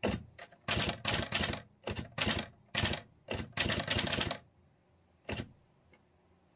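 Olivetti Linea 98 manual typewriter with a Korean Hangul keyboard being typed: quick runs of sharp keystrokes for about four seconds, then a single last strike about a second later.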